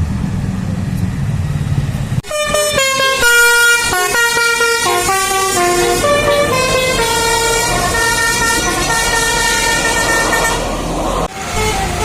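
Basuri telolet bus horn playing a quick melody of stepped horn notes, starting suddenly about two seconds in over a low rumble of engine.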